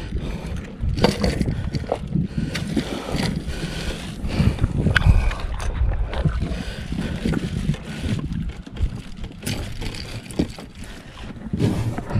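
Wind rumbling on the microphone and water lapping against a small outrigger fishing boat, with scattered knocks from handling gear and a caught fish in the boat.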